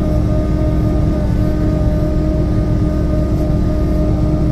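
John Deere 6300 tractor's diesel engine running steadily under load, pulling a 328 small square baler, with a steady whine over a deep rumble.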